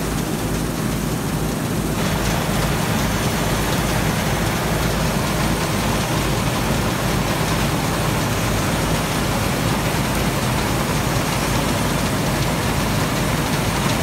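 Combine harvester running steadily while cutting grain: a low engine hum under a wash of machinery noise, shifting slightly about two seconds in.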